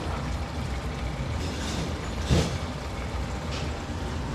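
Race fuel pouring from a plastic jug into a large funnel, a steady rush of liquid broken by a few short gurgles, the loudest about halfway through.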